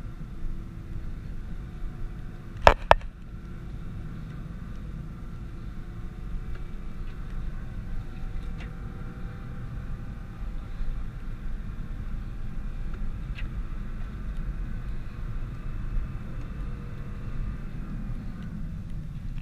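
Nissan GT-R on the move: a steady low rumble of engine and road noise with faint, slowly drifting whine tones. A sharp double click about three seconds in is the loudest sound.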